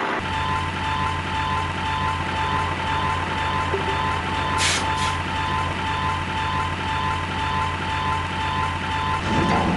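A truck engine running steadily with a low, even, pulsing hum. About halfway through come two short bursts of hiss.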